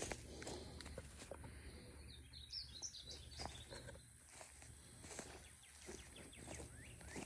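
Faint outdoor woodland ambience with scattered footsteps and rustling in brush, and a short run of high bird chirps about two and a half seconds in.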